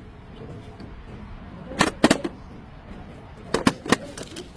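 Sharp knocks or clanks, three in quick succession about two seconds in and three more a little before the end, over a low steady background.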